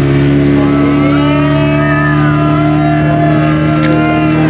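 Motorboat engine running steadily at a constant speed under way, with a faint wavering tone gliding up and down above it.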